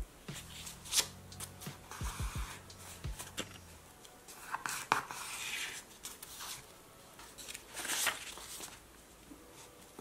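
Paper being handled on a journal page: rustling and swishing as a printed paper cutout is moved and slid about, with small clicks and taps, louder around the middle and near the end.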